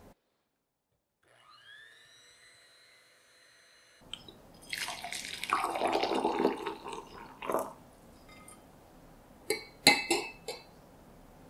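Water poured over ice cubes into a glass measuring jug, splashing and rattling the ice for about three seconds. Then a metal spoon is stirred in the jug and clinks sharply against the ice and glass a few times near the end.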